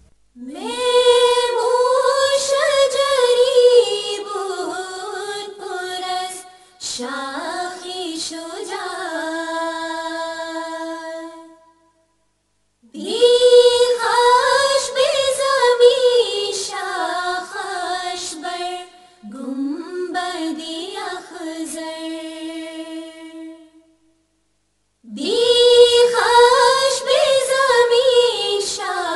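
A single voice singing a Farsi ginan, an Ismaili devotional hymn, unaccompanied: three long phrases that wind up and down in pitch, each broken off by a pause of about a second.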